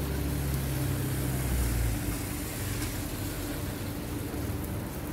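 An SUV drives past on a rain-soaked street, its engine and tyres loudest in the first two seconds and then gone, over the steady sound of heavy rain.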